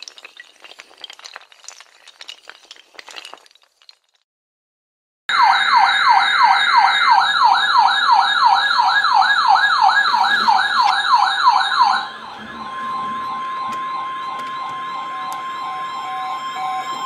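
Faint crackling noise, then silence, then a loud electronic warbling siren alert starts suddenly about five seconds in, wavering up and down about three times a second. About halfway through it drops in level, and a fainter warble carries on over a steady tone near 1 kHz, the pitch of the weather-radio warning alarm.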